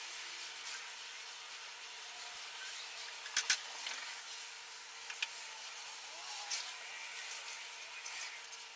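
Faint hand-work noises at a workbench: soft rubbing and handling over a steady low hum, with two sharp clicks close together about three and a half seconds in and two lighter ticks a couple of seconds later.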